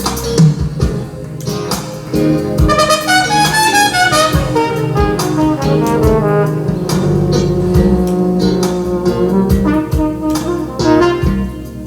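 Instrumental jazz passage played back from a reel-to-reel tape deck: a brass lead melody over a steady beat, with no singing.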